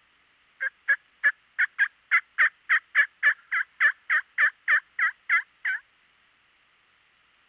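A long series of turkey yelps, about seventeen notes at roughly three a second, each note dropping in pitch. It starts under a second in and stops about six seconds in.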